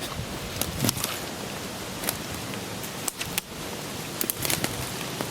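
Footsteps crunching and rustling through leaf litter and brush, a few irregular crackles over a steady hiss.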